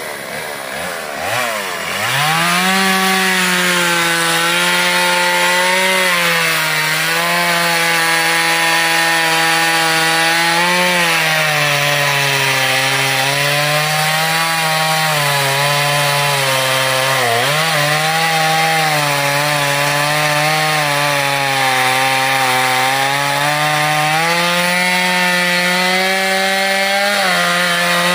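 Two-stroke chainsaw revving up over the first two seconds, then running at high throttle while cutting into the base of a coconut palm trunk. Its pitch sags and recovers as the chain bites and the load changes, with a brief sharp dip a little past halfway.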